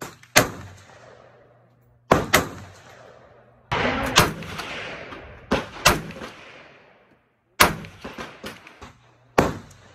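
Rifle gunshots fired singly, including an AK-pattern rifle: about ten sharp cracks at irregular intervals, several in quick pairs, each trailing off in echo from the covered firing line.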